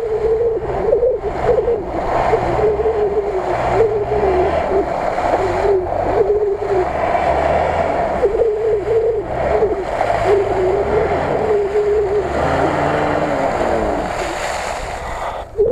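A Lada Niva's engine revving hard and unevenly, the revs rising and falling again and again, as the off-roader's wheels spin and churn through deep marsh mud.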